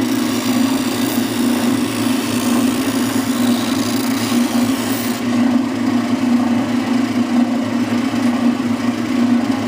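Oscillating spindle sander running with a steady motor hum while its sanding drum rasps against the edge of a wooden panel. The rasping is brightest from about one to five seconds in.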